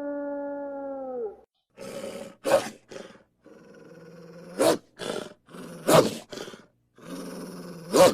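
Eurasian wolf howl trailing off with a falling pitch, followed by a run of harsh wolf growls and snarls in about nine short bursts with brief gaps between them.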